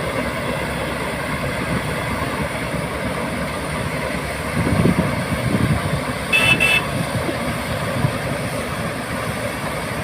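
Combine harvester running steadily, growing louder for a moment about halfway through, with a short high-pitched beep about six seconds in.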